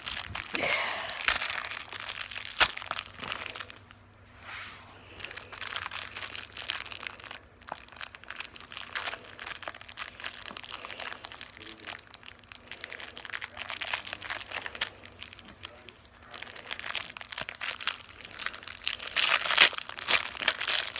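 Plastic candy wrapper crinkling as it is handled and opened, in irregular bursts, loudest near the end.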